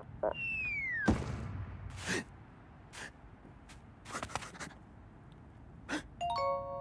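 Cartoon sound effects: a falling whistle that ends in a thud about a second in, a few scattered knocks and clicks, then a bell-like ding chime of several held tones near the end.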